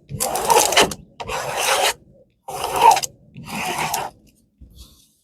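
A diamond painting canvas being handled and unfolded, rustling and crinkling in four bursts of under a second each, with a faint fifth near the end.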